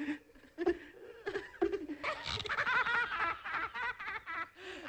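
A cartoon character laughing high on the film soundtrack: a few short sounds at first, then about two seconds in a quick run of laughs that goes on nearly to the end.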